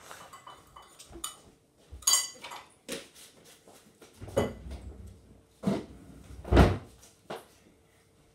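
Handling noise: a handful of irregular knocks and rubbing bumps, the loudest a dull thud about six and a half seconds in.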